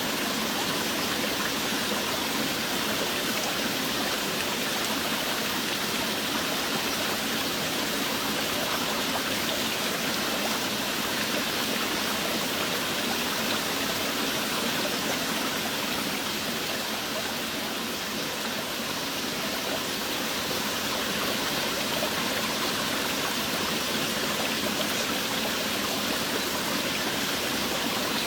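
Steady, unbroken rain: a dense even hiss of water with no single drops or pauses standing out.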